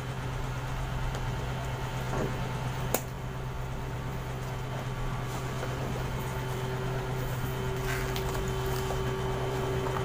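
Steady low electrical hum of an appliance in a small room, with a faint higher steady tone over it and one sharp click about three seconds in.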